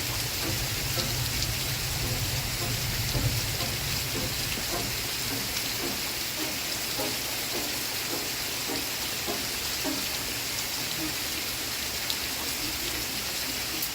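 Steady rain falling, with faint short tones from an old television show's soundtrack playing under it.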